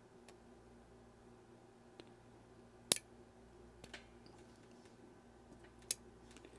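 Two sharp clicks about three seconds apart, with a few fainter ticks between: small metal tools and watch parts being handled and set down on a hard work surface during watch disassembly. A faint steady hum sits underneath.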